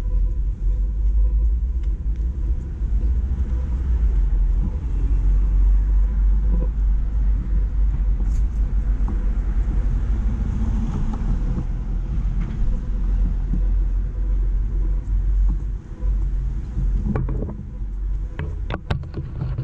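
City street traffic: a steady low rumble, with a vehicle passing about ten seconds in and a few sharp clicks and knocks near the end.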